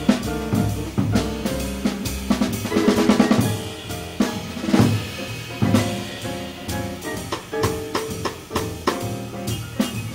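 Instrumental jazz from piano, upright double bass and drum kit, with the drums to the fore: a dense run of sharp drum and cymbal hits over piano chords and walking bass.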